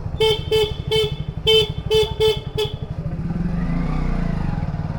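A vehicle horn beeps seven times in quick short taps over the steady low running of a Hero Splendor motorcycle's single-cylinder engine. After the beeps, a passing vehicle swells and fades.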